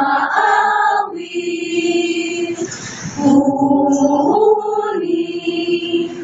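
A group of voices singing together in chorus, holding long notes that change pitch a few times.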